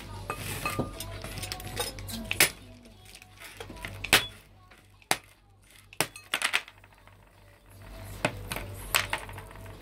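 Knife blade striking a sealed clay cooking pot, a series of sharp knocks at uneven intervals, cracking the pot's neck open so the top can be broken off.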